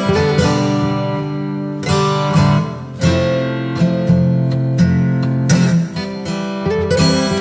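Background music of a strummed acoustic guitar, its chords struck about once or twice a second.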